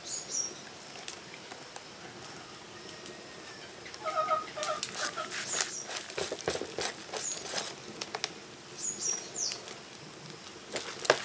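Wire whisk stirring thick palm-fruit batter in a steel bowl, its wires clicking and scraping against the metal in quick irregular strokes that grow busier about four seconds in. A few short high chirps sound now and then over it.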